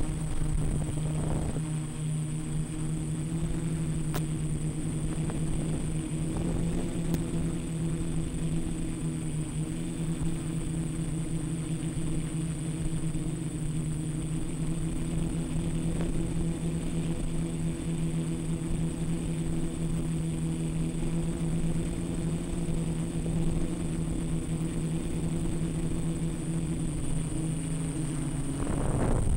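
Quadcopter's electric motors and propellers buzzing at a fairly steady pitch, with a thin high whine above it. The pitch shifts slightly a few seconds in and again near the end.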